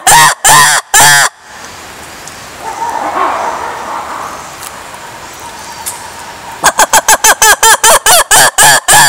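Black-and-white ruffed lemur giving its loud call: harsh, rhythmic barking pulses about three a second that break off about a second in, then after a lull of some five seconds start again, faster at first.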